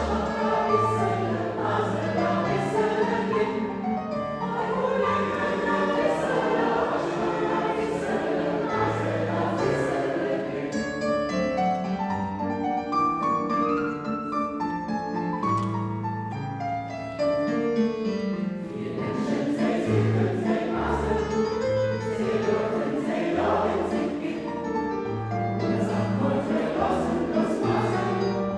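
A choir singing in several parts, with long held notes over a moving low part.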